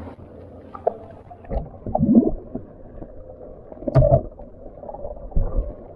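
Muffled underwater sound of hands and feet working a mosquito net over a rocky bottom: water sloshing with dull, irregular bumps, and one sharp knock about four seconds in.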